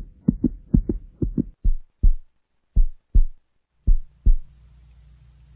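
A heartbeat beating in lub-dub pairs, slowing down until it stops about four seconds in; a faint low hum follows.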